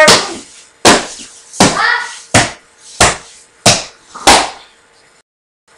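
A series of about seven sharp smacks, roughly one every 0.7 seconds, with a brief voice mixed into one or two of them, stopping about four and a half seconds in.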